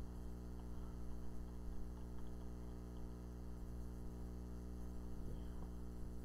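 Steady electrical mains hum in the recording, a low buzz with a ladder of overtones that does not change.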